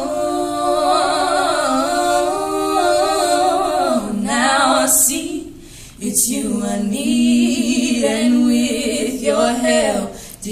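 Two women singing together a cappella, with long, wavering notes and a short break for breath about five seconds in.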